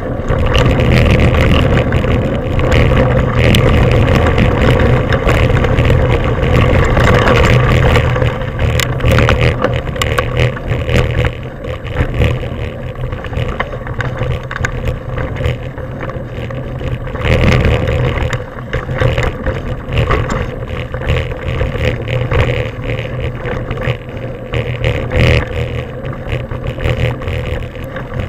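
Mountain bike ridden fast along a dirt forest trail, heard from a bike-mounted camera: loud wind rumble on the microphone, with rattles and knocks from the bike over bumps in the trail. It eases a little after the first several seconds.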